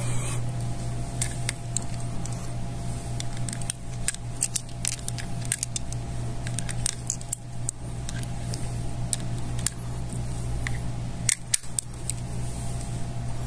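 Reloading a stainless Taurus RT 85S five-shot revolver by hand: scattered metallic clicks and clinks of brass .38 Special cartridges being handled and pushed into the swung-out cylinder.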